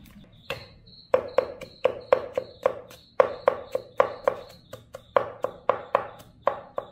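Large kitchen knife chopping shallots on a round wooden chopping board: a quick run of sharp knocks, about four a second in short bursts, starting about a second in. Crickets chirp steadily behind.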